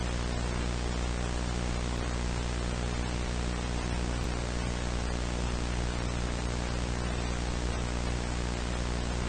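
Steady hiss of analog TV static with a low buzzing hum under it.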